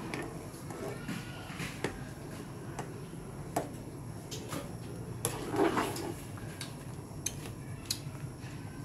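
Scattered clicks and knocks of dishes and kitchen utensils being handled, with a louder cluster of clatter about five and a half seconds in.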